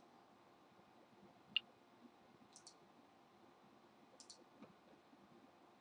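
Computer mouse clicks over faint room tone: one sharper single click about a second and a half in, then two quick double clicks, one at about two and a half seconds and one just past four seconds.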